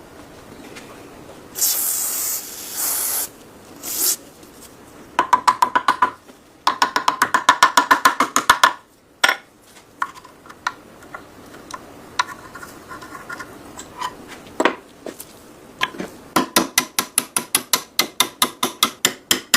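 Rust being scrubbed by hand off the steel of a K98 rifle with an abrasive: a few long hissing strokes, then runs of quick back-and-forth rubbing strokes, about six a second, with a slight metallic ring.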